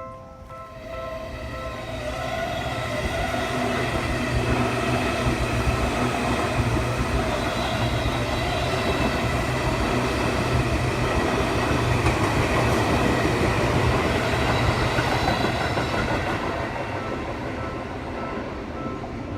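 Seibu Shinjuku Line electric train passing through a level crossing. It builds up over the first few seconds, runs past loudly and fades near the end. The crossing's electronic warning bell rings in a steady repeating pulse, heard clearly at the start and again near the end when the train no longer covers it.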